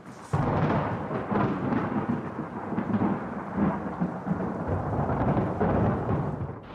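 Rolling thunder that breaks in suddenly a moment in and rumbles on, easing briefly near the end.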